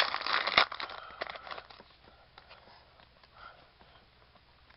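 Foil wrapper of a trading-card pack crinkling as it is peeled open, loudest for about half a second. It is followed by a few light clicks and rustles of the cards being handled.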